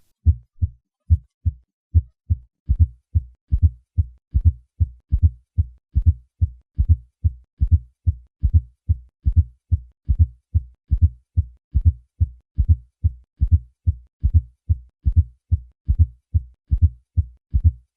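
Heart sounds with a fourth heart sound: low thumps in a steady triple rhythm, the S4 gallop falling just before each first heart sound. It is a low-pitched, late-diastolic sound typical of hypertension with left ventricular hypertrophy.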